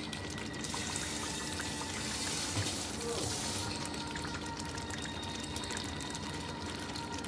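Pot of stew simmering, its surface bubbling and popping, with a steady hiss from about half a second in until nearly four seconds in.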